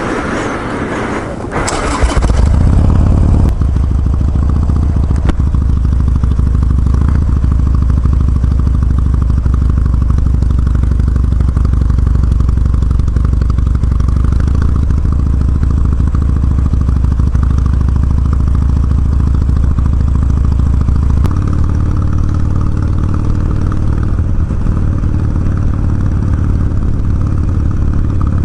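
Harley-Davidson Sportster's air-cooled V-twin engine starting about two seconds in, then idling loudly and steadily. The idle note shifts slightly about three-quarters of the way through.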